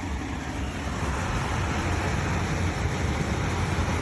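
COSTWAY 14000 BTU portable air conditioner running on its fan, a steady rush of moving air over a low hum that grows a little louder about a second in. The unit blows only room-temperature air with no compressor vibration, which the owner takes as a sign that the compressor may not be working.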